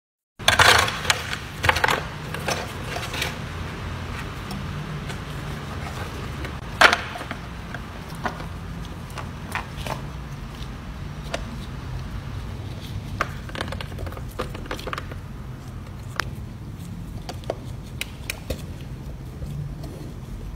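Gummy candies being dropped and pushed into a plastic sectioned serving tray by a gloved hand: scattered soft clicks, taps and scrapes, with a sharper knock about seven seconds in, over a low steady hum.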